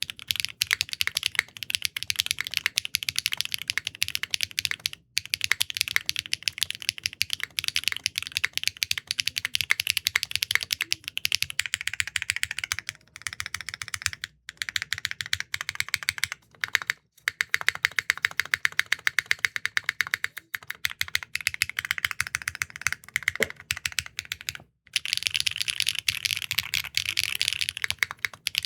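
Fast typing on a Neo65 Core Plus mechanical keyboard built with Keygeek M3 linear switches, a quick stream of clacky keystrokes with brief pauses every few seconds.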